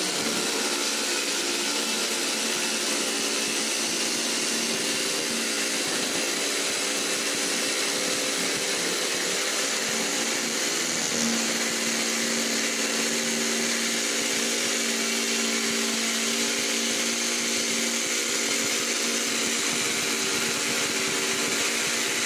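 Corded electric jigsaw running steadily as its blade cuts a curve through stacked sheets of white-laminated particle board: a constant motor hum under the blade's rasp.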